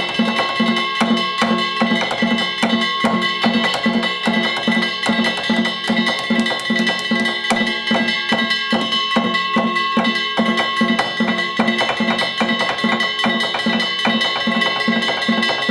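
Danjiri festival music: drums beating a fast, even rhythm of about three strokes a second, with small hand-struck gongs clanging over them.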